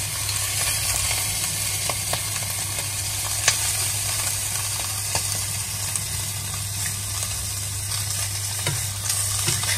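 Food sizzling in a hot frying pan as it is stirred, with a few sharp clicks over the steady frying hiss, the loudest about three and a half seconds in, and a low steady hum underneath.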